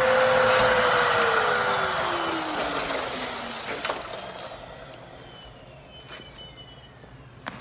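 Hoover Commercial HushTone upright vacuum cleaner switched off. The motor whine slides down in pitch and the rush of air fades over about four seconds as it spins down, followed by a faint click or two.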